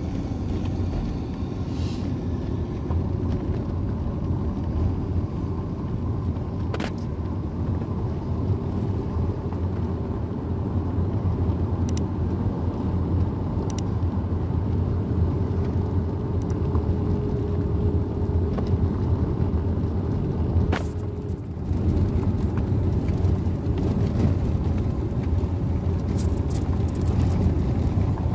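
Car driving over a rough dirt and gravel road, heard from inside the cabin: steady engine and tyre rumble, with a few sharp clicks or knocks.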